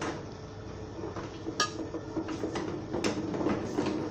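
Dishes and metal cutlery clinking and knocking, a string of sharp clinks with one bright ringing clink about a second and a half in, the loudest.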